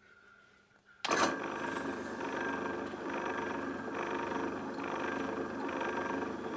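Near silence for about a second, then a drilling machine's motor starts suddenly and runs steadily while a twist drill bores a hole into a metal block held in a vise.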